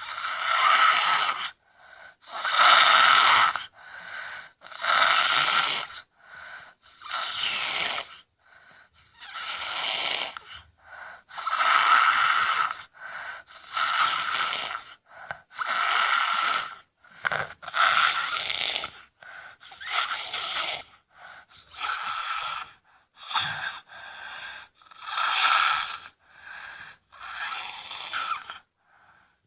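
A sleeping child snoring heavily: a loud rasping snore about every two seconds, with quieter breaths in between.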